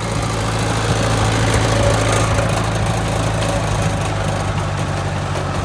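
Sawmill engine running steadily at a low hum to power the log loader's hydraulics, a little louder about one to two seconds in.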